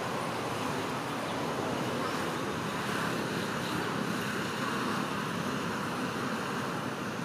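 Steady background noise, an even rushing hiss with no distinct calls or knocks in it.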